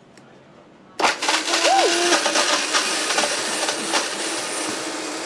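Countertop blender switched on high about a second in, grinding hard chunks of Parmesan cheese: a sudden loud start with a rattle of cheese chunks hitting the jar, then the motor running steadily as the cheese is ground to fine crumbs.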